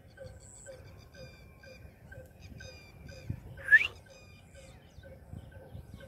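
Rose-ringed parakeet giving one short, shrill rising call about four seconds in, over faint chirping of other birds and a faint pip repeating about three times a second.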